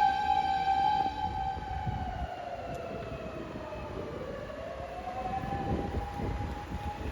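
Fire-engine motor siren wailing: its pitch slides slowly down over about four seconds and then winds back up. It grows fainter in the first couple of seconds, with low traffic rumble beneath.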